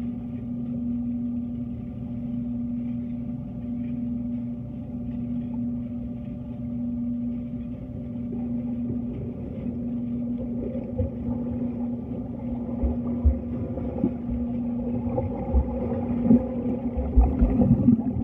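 Pool water heard underwater: a steady low hum with a wash of water noise. From about two-thirds of the way in, the thuds and swishes of a swimmer's kicks grow louder and more frequent.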